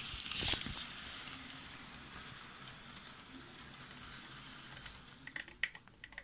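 H0 model container train, hauled by a Hector Rail 141 model locomotive, running on the layout track: a steady hissing rush of motor and wheels that slowly fades as it passes. A few sharp clicks and knocks come in the first second and again near the end.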